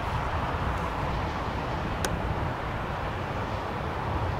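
Boeing 737 jet engines running steadily at taxi power, a continuous rush, with wind buffeting the microphone. A single short click about two seconds in.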